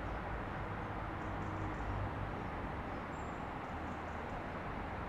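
Outdoor city ambience: a steady hum of distant traffic, with a few faint high chirps now and then.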